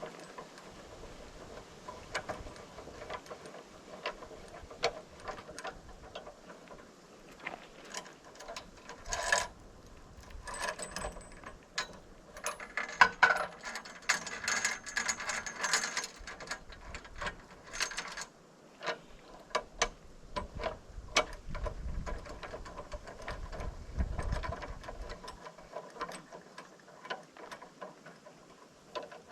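Irregular metallic clicks and clatter from hand-tool work on metal, busiest in the middle stretch.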